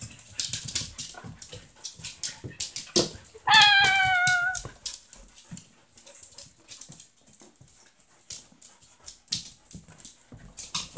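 A dog gives one loud, high whine about three and a half seconds in. It lasts just over a second and drops slightly in pitch. Around it come scattered clicks and knocks of dogs scuffling in play on a wooden floor.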